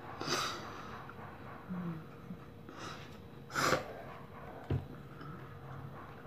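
A person's sharp breaths through the nose, three short ones in the first four seconds, then a soft thump.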